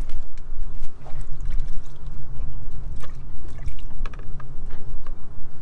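Water sloshing and splashing, several short irregular splashes over a steady low rumble.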